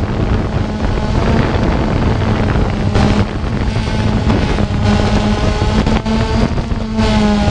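A camera drone's electric motors and propellers buzzing steadily in flight, the pitch of the whine shifting slightly as it manoeuvres, with wind rushing over the microphone.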